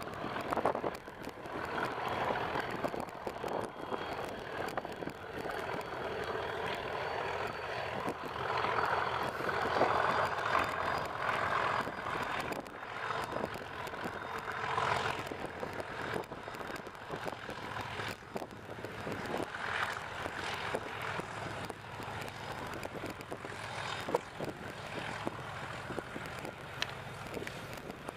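Two Class 37 diesel locomotives running in tandem, working under load as they haul a passenger train, with a faint high whistle over the engine note in the first half. Wind crackles on the microphone throughout.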